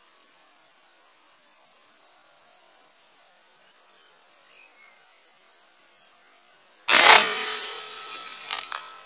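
A single shot from a PCP air rifle about seven seconds in: one sudden sharp report with a short ringing tail, followed by a couple of small knocks, over a steady high buzz.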